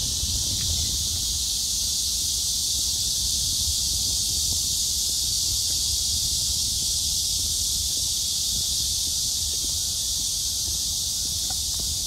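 A steady, high-pitched chorus of insects buzzing and shrilling in the park trees, with an unchanging low rumble underneath.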